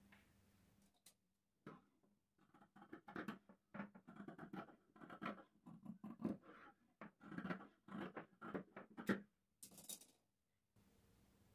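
Large fabric scissors cutting through folded cloth: a run of quick, crisp snips from about two seconds in until about nine seconds. Near the end, a short rustle of the cut-off fabric strip being lifted away.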